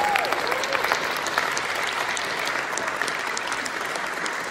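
Concert audience applauding after a wind ensemble performance, with a few cheers in the first second; the applause slowly dies down.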